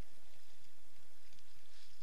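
Waves washing and splashing against a sailing kayak's hull in choppy sea, with wind buffeting the microphone in an uneven low rumble. The wash swells near the end.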